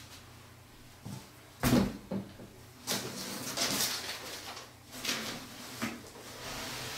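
Handling noises from moving a UPS unit and its cables: a sharp knock about two seconds in, the loudest sound, then rustling and several lighter thumps.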